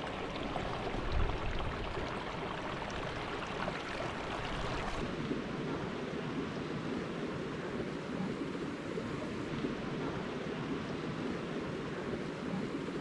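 Shallow mountain stream running over rocks: a steady rush of flowing water, shifting a little in tone about five seconds in.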